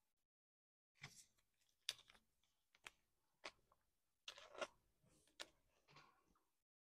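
Faint clicks and rustles of baseball trading cards being handled and set down on a table, a handful of light taps spaced about a second apart.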